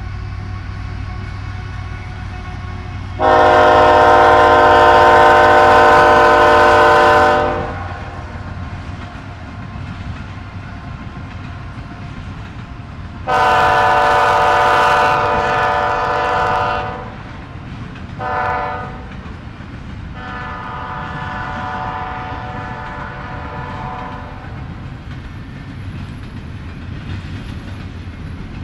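Diesel locomotive's multi-chime air horn sounding the grade-crossing signal: two long blasts, a short one, then a fainter long one. Under it runs the steady rumble of the train rolling on the rails.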